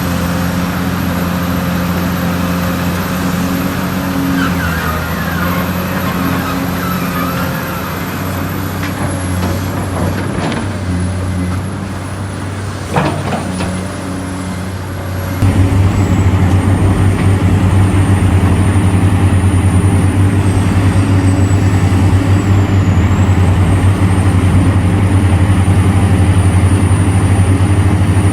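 Large diesel engines of mining excavators and haul trucks running with a steady low drone. There is a single sharp knock about halfway through. Shortly after, the sound steps abruptly to a louder, steadier engine drone.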